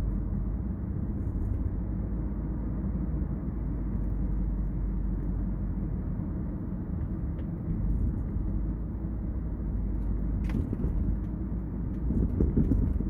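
Steady road and engine rumble inside a Kia K5 sedan's cabin at highway speed, with a short click about ten and a half seconds in.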